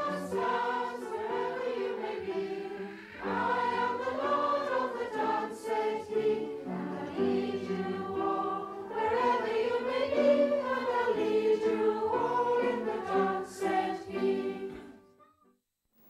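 A group of voices singing a song together, accompanied by an upright piano. The singing fades out near the end.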